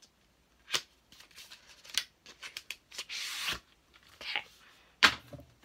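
Cardboard eyeshadow-palette packaging being handled: scattered taps and rustles, with a noisy half-second rasp about three seconds in as the palette is taken out of its outer box.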